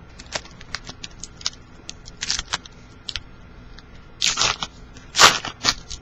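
Trading cards and a foil pack wrapper being handled: a string of small clicks and card taps, with crinkly rustles of the wrapper about two, four and five seconds in.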